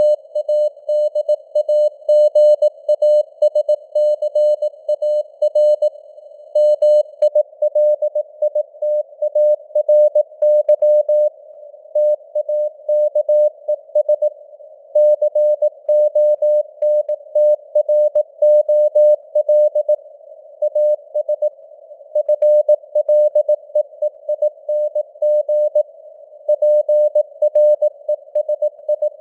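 Morse code sent at 18 words per minute: a single tone near 600 Hz keyed in dots and dashes, over a narrow band of simulated radio hiss around the tone.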